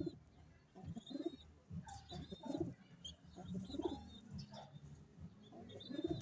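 Young pigeons cooing, a call about every second, with short high chirps mixed in.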